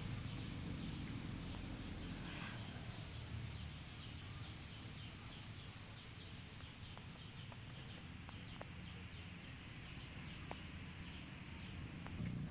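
Quiet outdoor ambience: a low rumble that fades over the first few seconds, a faint run of short, high, repeated chirps, and a few soft clicks.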